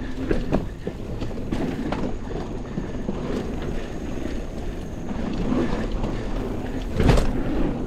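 Mountain bike riding over a dirt trail: tyre noise, chain and frame rattle and small knocks, with wind on the microphone, and one hard thump about seven seconds in, typical of landing a drop.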